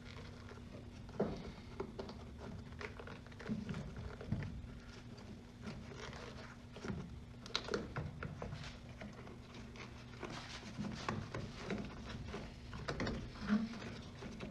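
Scattered light knocks, clicks and rattles of hand work on car parts, over a steady low hum.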